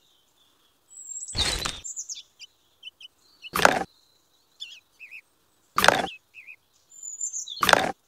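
Small birds chirping with short, high calls. Four short, loud noises cut in about two seconds apart.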